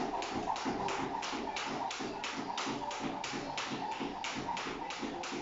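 Cable jump rope skipping on a tiled floor: a sharp slap of the rope and the landing of the feet, repeating evenly about three times a second.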